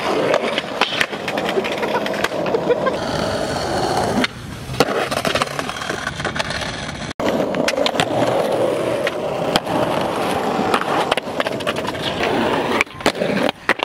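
Skateboard wheels rolling over rough pavement, with repeated sharp clacks and knocks of the board hitting the ground.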